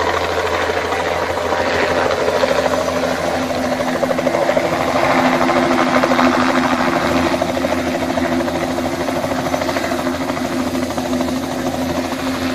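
Bell 206 JetRanger helicopter hovering low and setting down on grass: a steady, fast rotor chop with a steady engine tone under it. It is loudest midway and eases a little near the end as it sits on its skids with the rotor still turning.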